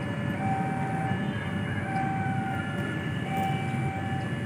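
Steady low rumble of a train approaching along the tracks. Over it, a repeating pattern of steady tones at a few pitches sounds, each tone lasting under a second and coming back about every second and a half.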